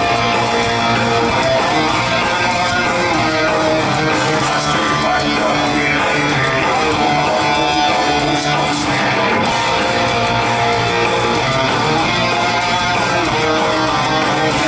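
Folk metal band playing live: a loud, dense amplified mix of electric guitar, bass and accordion, with held melody notes over a driving rhythm.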